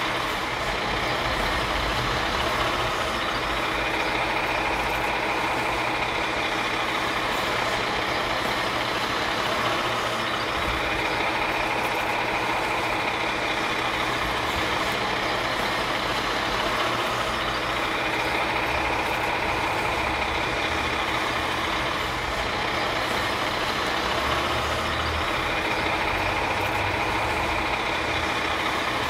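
Garbage truck engine running steadily, with a higher hiss that comes and goes about every seven seconds.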